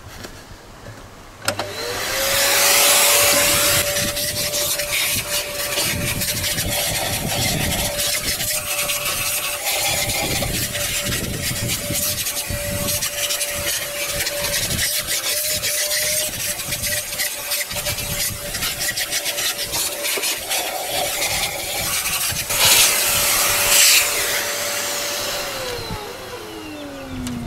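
Vacuum cleaner switched on about a second and a half in, its motor whine rising to a steady pitch with a rushing hiss and scattered small clicks as scrapings are sucked off the engine block deck. It is switched off near the end, the whine falling in pitch as the motor winds down.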